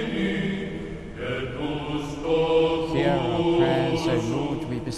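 A man's voice slowly intoning a prayer in a chant-like delivery, carrying in a large church.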